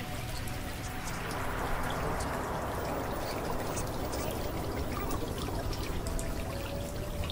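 Running water pouring and trickling, with scattered drops and a swell in the first few seconds, over a steady low hum and a few faint held tones.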